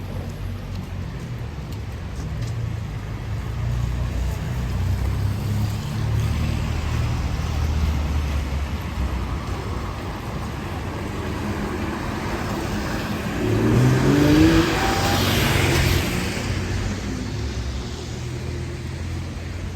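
Street traffic: a low, steady engine rumble, then about two-thirds of the way through a vehicle accelerates and passes close by, its engine pitch rising as the sound swells and fades.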